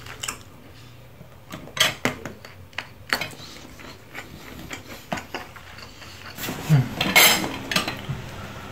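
Cooked lobster shell being cracked and pulled apart by hand over a plate: scattered clicks and crackles, with a louder run of crackling shell about seven seconds in.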